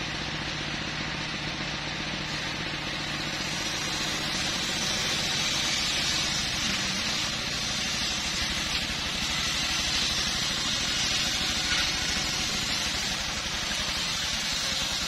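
Stihl MS 381 two-stroke chainsaw idling steadily, with an even, fast low pulsing and a steady high hiss.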